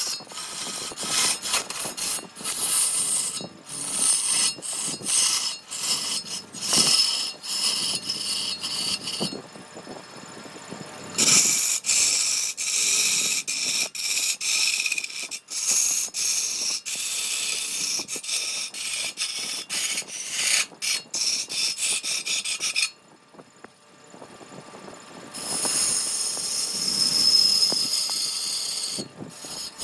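A power tool working wood: scraping, hissing cutting or sanding with many sharp clicks and thin squeals. It works in stretches and stops briefly twice.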